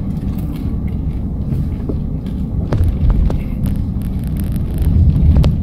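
Low, steady rumble of a car's engine and tyres heard from inside the cabin while driving slowly, with a few light clicks.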